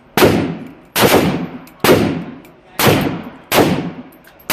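Five 7.62x39 rifle shots through a PWS Diablo suppressor, fired about one a second, each sharp report trailing off over most of a second.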